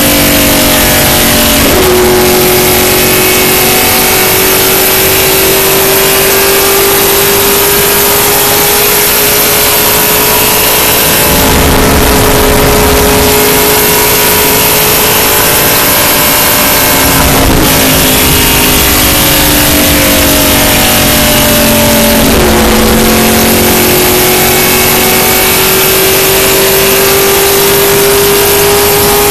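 NASCAR stock car's V8 engine running hard at racing speed, heard from inside the cabin over heavy wind and road noise. Its steady drone rises slowly in pitch and drops sharply three times before climbing again.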